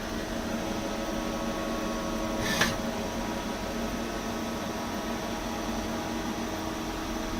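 Hitachi Seiki TS15 CNC lathe running, a steady machine hum with several constant tones. About two and a half seconds in there is a short, sharp hiss.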